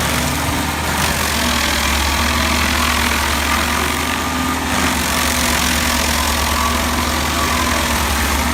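A large wood chipper running under load: a steady low diesel engine drone beneath a loud, continuous hiss of material being chipped.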